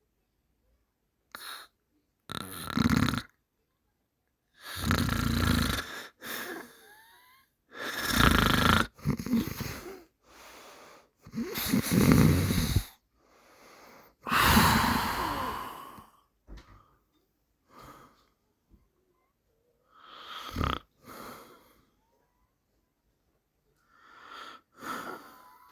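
A person snoring in slow, uneven breaths, one snore every few seconds, with a pause of a few seconds about two-thirds of the way through.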